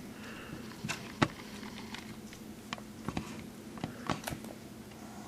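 Scattered light clicks and taps of hands handling a small plastic toy and Play-Doh, one sharper click about a second in, over a faint steady hum.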